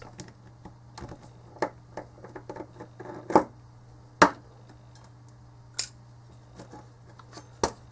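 Scattered clicks and light knocks of sheet-metal and plastic parts as a JVC car stereo's CD mechanism is pried apart by hand. The two sharpest knocks come about three and a half and four seconds in, over a faint steady low hum.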